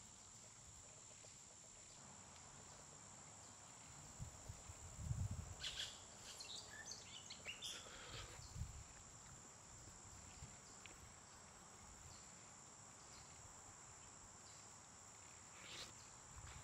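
Woodland ambience: a steady high-pitched insect drone throughout, with a few soft low thumps and short high chirps clustered about a third of the way in.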